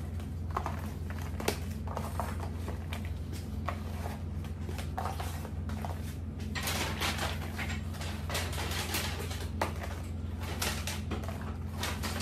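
Cardboard macaron gift boxes being handled: lids slid shut and boxes set down and stacked on a countertop, giving scattered taps and clicks with a longer stretch of sliding and scraping in the middle, over a steady low hum.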